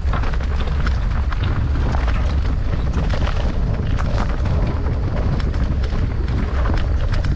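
Wind buffeting the camera microphone with a steady low rumble during a fast mountain-bike descent. Over it come frequent small clatters and knocks from the bike and tyres running over rough, rocky trail.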